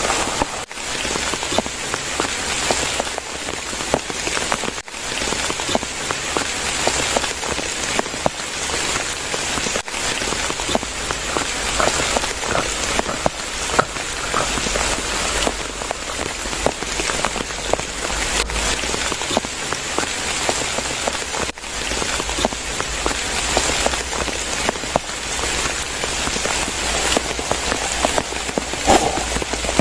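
Steady rain falling on surfaces, with many individual drops ticking through the hiss.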